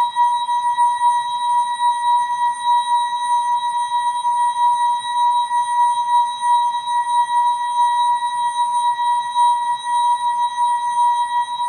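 ASKfm notification sound effect slowed and time-stretched into one steady, unbroken high-pitched tone with fainter overtones above it, wavering slightly in loudness.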